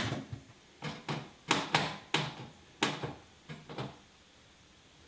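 About eight sharp knocks and clunks over three seconds, then a quiet second: tools and hardware knocking against a boat's center console as a power converter unit is fastened in place.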